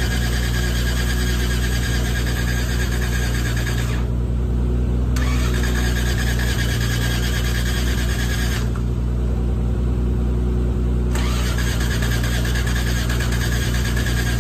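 Old Toyota Crown's engine being cranked over steadily and at length by its starter motor on a weak battery, without firing.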